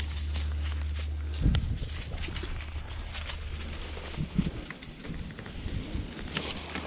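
Footsteps and rustling through dry grass and brush, with scattered knocks and crackles. A low steady rumble cuts off about a second and a half in.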